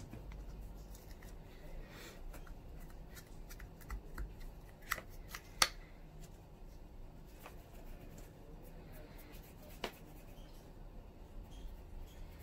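Soft handling of pastry dough and plastic pastry stamp molds on a stone counter, with a few sharp clicks and taps, the loudest about five and a half seconds in and another near ten seconds.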